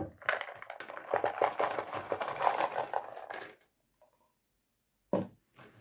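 A knock at the start, then about three seconds of rapid clicking and rustling as a box of thick cardboard jigsaw puzzle pieces is opened and the pieces are handled and tipped out. It cuts off abruptly about three and a half seconds in.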